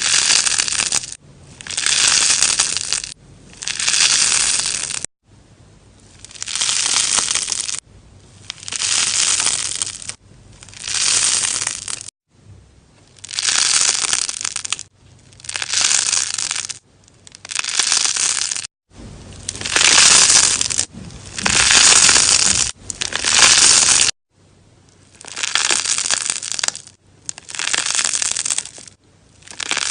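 Crunchy slime with sponge pieces in it being squeezed and pressed, crackling and popping in repeated bursts, one every second and a half to two seconds, each building up and then stopping short.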